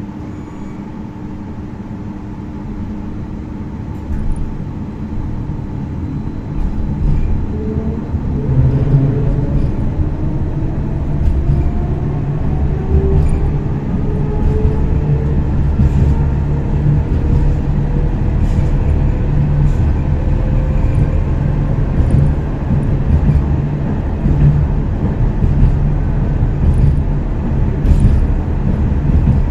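Stadler B85600M low-floor tram accelerating: the electric traction drive's whine rises steadily in pitch over many seconds, over a low rumble of wheels on rails that grows louder as it gathers speed.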